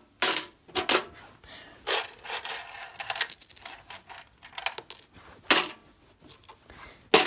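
Coins clinking and clattering against each other and a metal coin box, a string of sharp jingling knocks at uneven intervals, loudest near the start and near the end.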